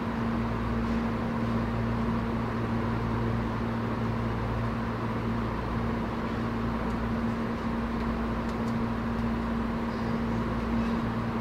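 Inside a Tobu 10030 series electric train car: a steady electrical hum over an even whooshing background noise, with no change in level or pitch.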